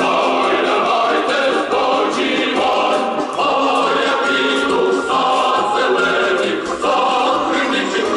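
Music: a choir singing a song over instrumental accompaniment.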